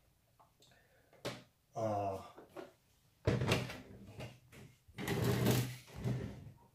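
Hard plastic scale RC truck body being handled and fitted onto its chassis: a click, then two spells of plastic rubbing and knocking, with a short murmured word between them.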